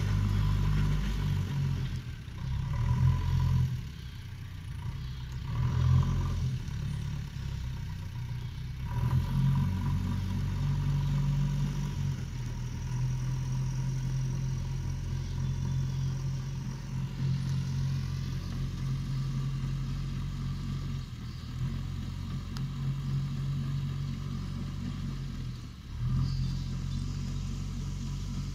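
JCB backhoe loader's diesel engine running, with several louder revving surges in the first ten seconds and one more near the end.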